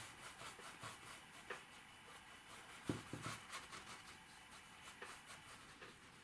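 Faint, scratchy strokes of a paintbrush rubbing acrylic paint across a stretched canvas, with a couple of soft knocks about three seconds in.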